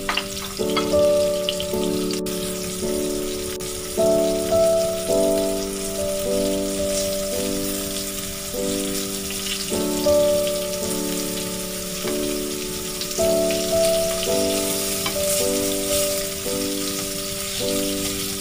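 Flour-coated garoupa fish belly pieces frying in oil in a pan, sizzling steadily, under louder background music of held chords that change every second or so.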